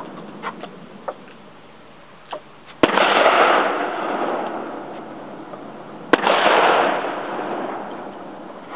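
Two sharp explosive bangs about three seconds apart, each followed by about a second of rushing echo that fades away.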